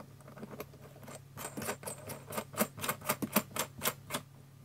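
A quick, even run of small hard clicks, about four a second for some three seconds, from hands fitting a metal panel-mount push-button switch.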